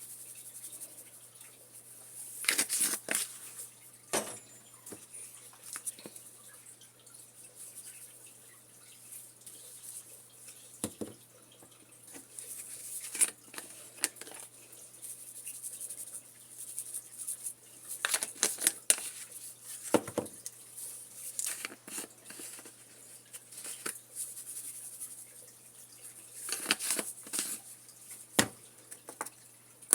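Seasoning containers being handled and shaken over chicken in a crockpot: short rattling, shaking bursts with a few clicks and taps, in scattered groups separated by quiet.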